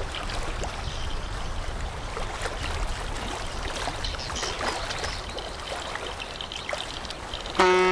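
Water lapping and splashing against the river bank, with a faint low rumble at first. Near the end a loud, steady, pitched tone starts abruptly.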